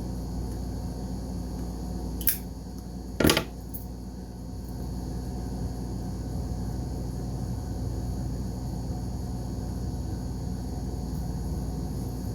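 Two short, sharp clicks of a small hard object being handled, about a second apart, the second louder, over a steady low hum of room noise.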